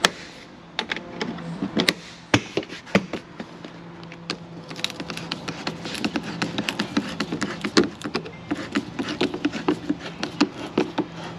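Plastic air-filter box lid being fitted and clipped down, with scattered sharp clicks, then a screwdriver tightening a worm-drive hose clamp on the rubber intake duct: a quick run of small clicks and scrapes from about halfway on.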